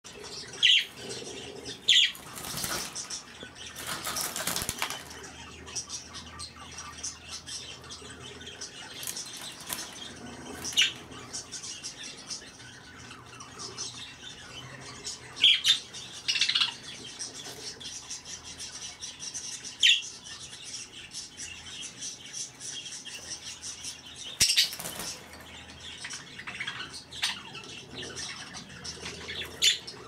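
Budgerigars chattering and warbling steadily, broken by a dozen or so sharp, loud chirps. A few seconds in there is a noisy rustling stretch.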